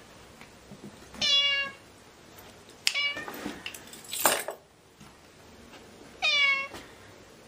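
Cat meowing while being fed a squeeze-tube treat: two long meows that rise and then hold, about a second in and again near the end, with a short meow just before the middle. About four seconds in there is a brief noisy rustle, about as loud as the meows.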